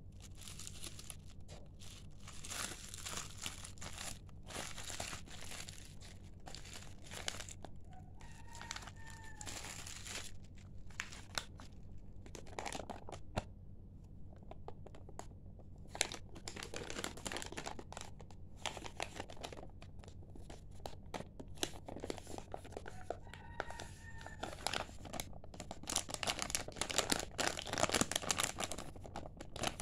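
Bubble wrap and a thin clear plastic bag crinkling and rustling as they are handled and pulled open by hand, in irregular bursts that get louder near the end.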